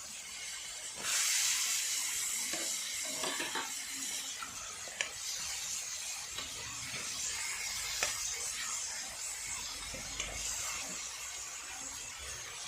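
Potato and pea curry sizzling in a hot pan as it is stirred. The sizzle grows suddenly louder about a second in, and a spoon clicks sharply against the pan a couple of times.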